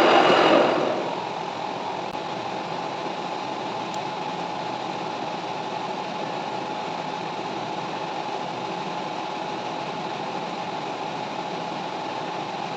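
A metal lathe running. A louder cutting noise dies away about a second in, leaving the machine's steady running hum with a faint whine.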